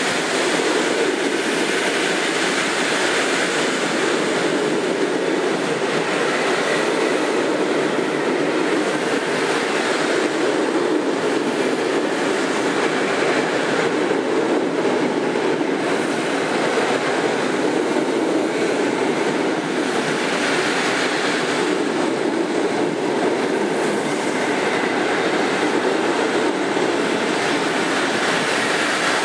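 Passenger train hauled by an EP07 electric locomotive rolling past close by, its carriages' wheels running on the rails with a steady, unbroken noise.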